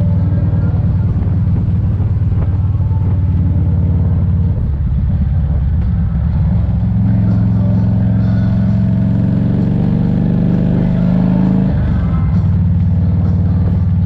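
Motorcycle engine running at road speed, a steady low drone. About halfway through it pulls harder and its pitch creeps up, then it drops suddenly near the end.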